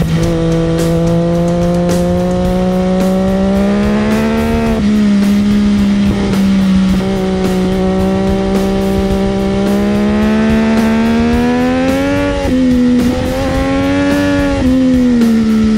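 Onboard sound of a sport motorcycle's engine pulling at high revs through corners. The pitch climbs slowly, drops at a shift about five seconds in, and climbs again. It dips briefly around twelve seconds, rises once more, then falls near the end as the bike slows. Wind noise runs under it.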